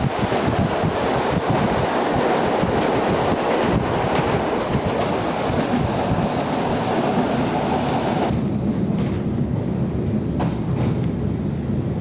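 EN57 electric multiple unit running, a steady rush of wheel-on-rail noise and wind with scattered knocks. About eight seconds in, the higher hiss drops away suddenly, leaving a lower rumble and a few sharp knocks as the train draws into the station.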